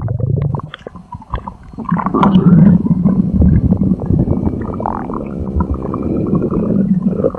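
Stomach growling sound effect: a low rumbling growl that fades out about a second in, then comes back loud with wet gurgles and keeps rumbling.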